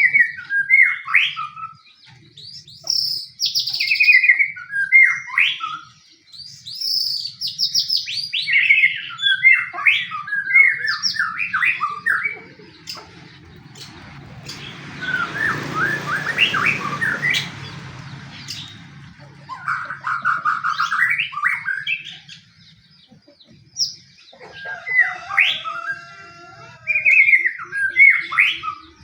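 White-rumped shama (murai batu) singing its fighting song in quick bursts of varied chirps, whistles and rapid trills, with short pauses between phrases and a hissing rush about halfway through. This aggressive song is the kind used to provoke other shamas into singing.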